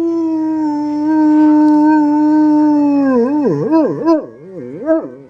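A dog howling: one long, steady note that slides slightly lower, then breaks into a warbling howl that swings up and down in pitch several times before stopping.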